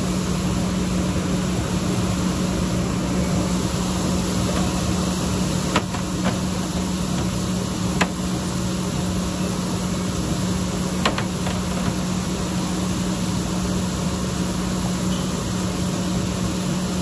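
A steady mechanical hum with one constant low tone, with three faint clicks spread through it.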